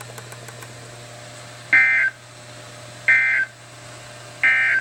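Emergency Alert System end-of-message signal: three short bursts of SAME digital data tones, evenly spaced about a second and a third apart, over a steady low radio hum and hiss. The bursts mark the end of the alert message.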